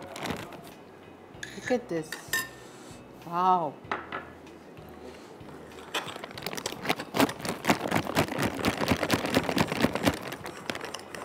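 A metal spoon stirring cream in a glass mixing bowl: a few clinks early on, then a long run of rapid clinking and scraping against the glass for about five seconds as the gelatin is mixed in.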